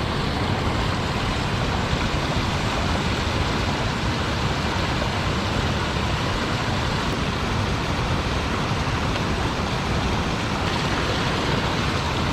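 Steady rushing of river water flowing over and between concrete blocks, an even, unbroken noise.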